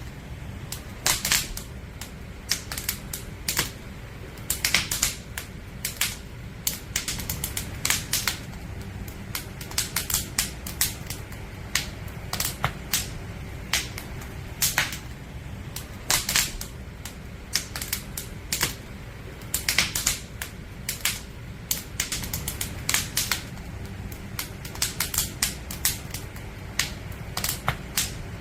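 Campfire of burning firewood crackling: irregular sharp pops and snaps, several a second, over a steady low rumble.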